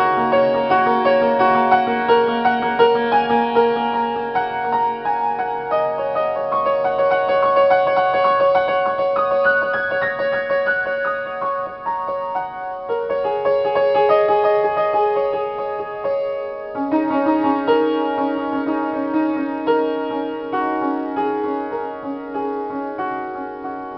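Upright piano played in a free, slow improvisation: held notes and chords, with a busier stretch of quickly struck notes in the middle, getting softer toward the end.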